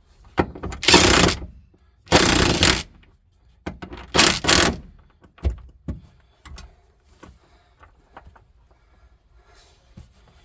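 Car seat parts being handled and pushed into place: three loud scraping rustles, each about half a second long, then quieter clicks and knocks.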